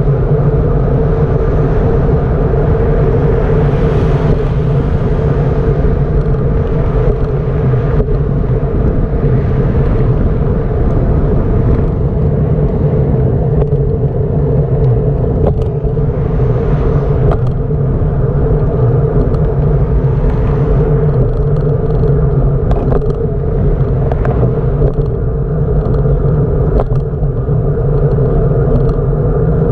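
Steady wind and road rumble on a camera carried on a moving bicycle, loud and unbroken, with scattered faint ticks in the second half.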